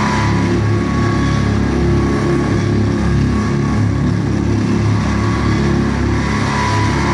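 Harsh noise music played live on electronics: a loud, unbroken wall of grinding noise over a low droning hum, with a thin steady tone running through it.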